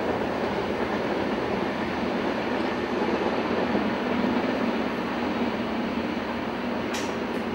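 Electric passenger train passing on the tracks: a steady rolling rumble, with two short sharp clicks near the end.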